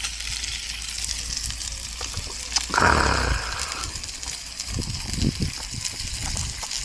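Pork jowl sizzling on an electric grill, a steady crackling hiss. About three seconds in there is a loud rush of noise lasting about a second.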